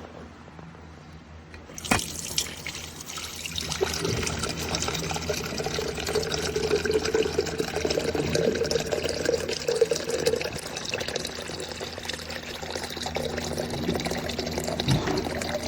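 Tap water running into an electric coffee percolator pot, filling it toward the max line. It starts about two seconds in, just after a sharp click.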